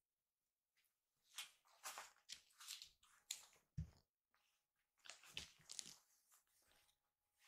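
Faint, soft licking and rustling as a kitten grooms its paw and fur on a fleece blanket, in short scattered spells, with one soft thump about four seconds in.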